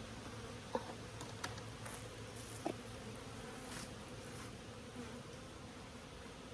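Honeybees buzzing steadily around an opened hive, with a few sharp clicks and some scraping in the first half.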